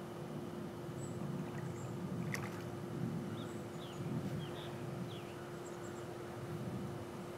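Outdoor pool ambience: pool water lapping and sloshing in slow, uneven swells under a steady low hum, with a few short bird chirps around the middle.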